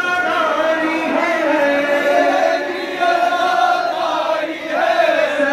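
Male voices chanting a noha, a Shia mourning lament, in long held melodic lines amplified through a microphone.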